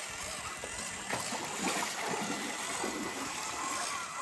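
River water flowing and babbling steadily, with small irregular splashes.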